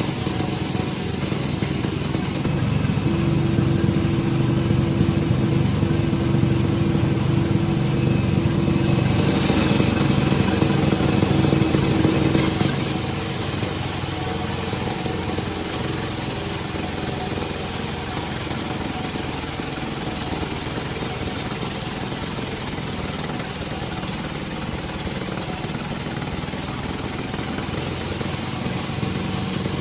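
Sawmill machinery running steadily, louder with a steady hum for about ten seconds from a couple of seconds in, then settling back to an even run.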